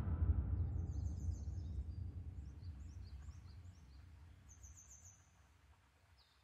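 A deep low rumble, the tail of a musical hit, fades away over the first five seconds. Small birds chirp faintly in quick repeated short calls above it.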